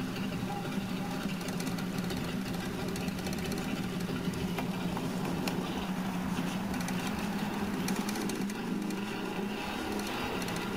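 A steady, even motor hum.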